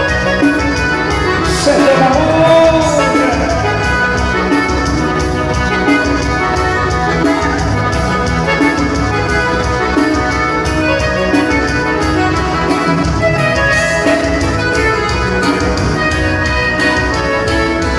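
Loud Latin dance music with a steady beat.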